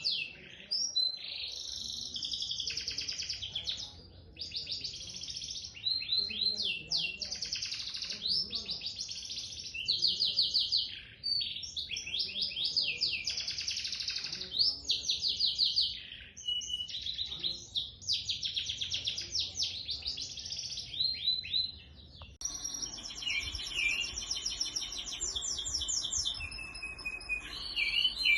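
Masteran songbird singing long phrases of rapid, high chirping trills with brief pauses between them. About 22 seconds in the song switches to a different, sharper pattern of trills over a louder background.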